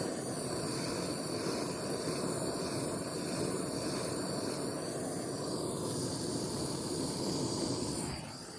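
Jeweller's gas torch flame running with a steady rushing hiss while heating silver for keum boo, dropping in level about eight seconds in.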